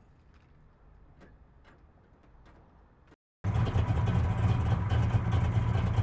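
Faint ambience, then a little past halfway a car engine cuts in abruptly and runs loudly with a steady deep rumble.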